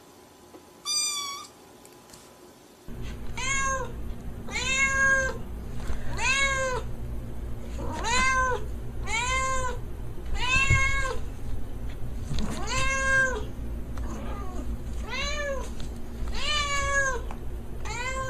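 Domestic cat meowing: one short meow about a second in, then a run of about ten long meows, each rising and falling, roughly one every second and a half, over a low steady hum.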